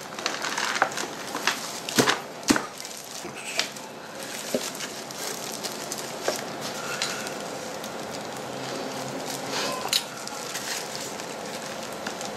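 Packed, crumbly beetle rearing substrate tipped from a plastic case into a plastic tray, with two sharp knocks about two seconds in. Then the crackly rustle of hands in disposable plastic gloves crumbling the substrate apart.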